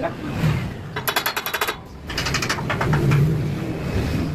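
Homemade galvalume slitting machine's gears and rollers rattling as it is worked: two quick runs of rapid metallic clicking, about a second in and again about two seconds in, over a low hum.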